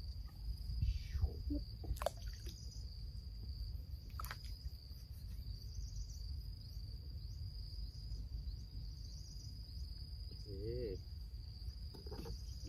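Insects in the waterside grass shrilling steadily on one high note, with pulsing chirps above it, over a low rumble of wind on the microphone; a couple of short clicks come about two and four seconds in.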